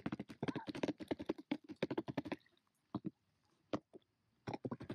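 A female mallard's bill pecking scattered grain off a plastic tub lid: a fast run of sharp clicks for about two and a half seconds, then a few separate clicks.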